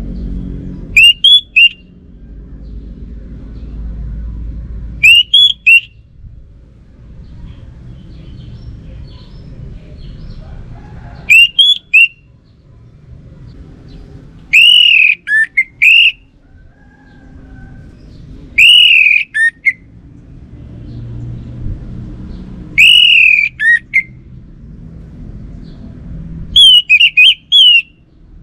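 Orange-headed thrush singing: seven short, loud whistled phrases a few seconds apart, some rising then falling in pitch, over a low background rumble.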